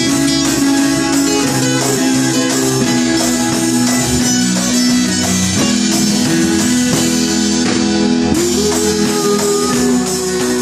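A live band playing a song: strummed acoustic guitar with keyboard, bass guitar and drums.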